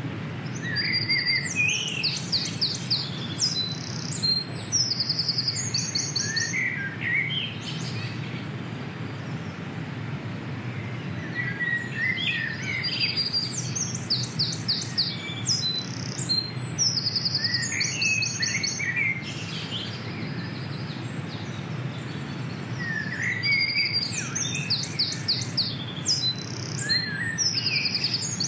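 A songbird singing the same phrase of fast high trills and twittering notes three times, about every eleven seconds, over a steady low rumble.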